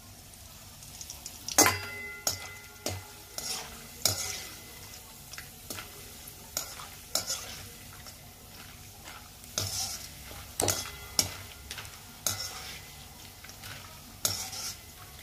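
Dried ash gourd peel pieces sizzling as they fry in hot oil in a steel kadai, while a wire-mesh skimmer scrapes and clanks against the pan to stir them. The loudest clank, about one and a half seconds in, sets the steel pan ringing.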